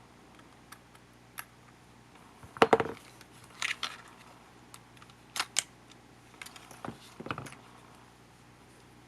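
Clicks and clatters of small plastic and metal parts being handled while a camcorder is taken apart. The loudest clatter comes about two and a half seconds in, with a few more sharp clicks through the middle.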